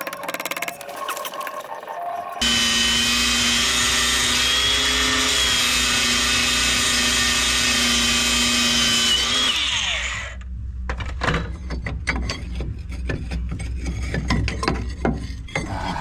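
A power tool starts about two seconds in, runs steadily for about seven seconds, then winds down with a falling pitch. Scattered knocks and clatter follow.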